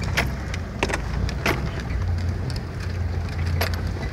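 Off-road 4x4 engine running at low revs, heard from inside the cab while crawling along a rutted green lane, with a few sharp knocks and clicks as the vehicle lurches over the ruts.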